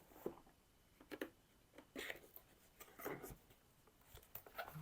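Faint, scattered rustles and light taps of a cardboard gift box being handled and opened by hand.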